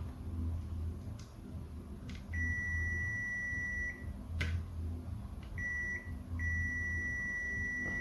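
Multimeter continuity beeper sounding as the probes touch points on a laptop motherboard: a steady high beep lasting over a second, a short blip, then a longer beep near the end. Each beep signals a connection between the probed points. Faint probe clicks fall between the beeps.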